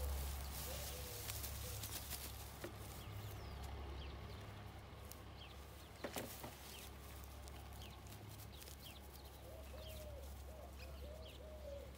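Outdoor farmyard ambience: small birds chirping on and off over a low wind rumble, with a single thump about halfway through. Over the last few seconds there is a quick run of short, lower-pitched calls.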